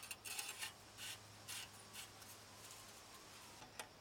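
Faint metal scraping and rubbing as the new strut-cartridge retaining nut is spun by hand into a front strut housing: a few short rubs in the first two seconds, then one sharp click near the end as a wrench goes onto the nut.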